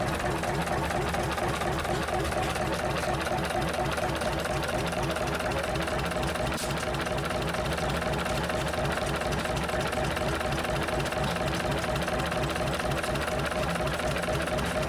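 Fairbanks Morse Model 36A two-cylinder 20 hp diesel engine running steadily, with an even, regular firing beat.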